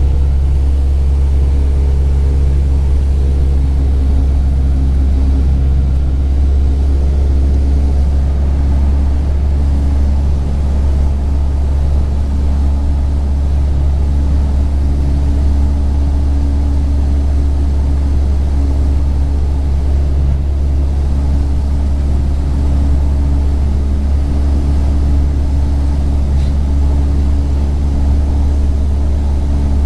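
Cessna 172's piston engine and propeller droning steadily, heard from inside the cockpit on final approach to landing.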